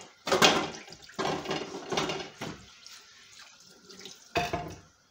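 Kitchen tap water splashing onto wooden cutting boards as they are rinsed in the sink, coming in several uneven surges and stopping near the end.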